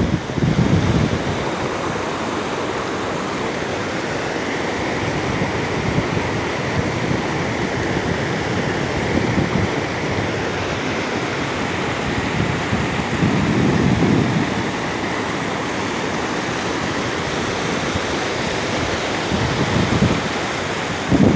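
Muddy floodwater rushing and churning as it pours through a breach in an earthen bank, a steady sound of turbulent water. A few gusts of wind buffet the microphone, one about halfway through.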